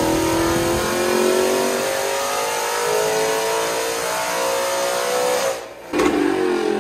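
Supercharged Ford Mustang GT Coyote 5.0 V8 making a full-throttle pull on a chassis dyno. The engine note climbs steadily in pitch for about five and a half seconds, then the throttle closes and the revs fall away near the end.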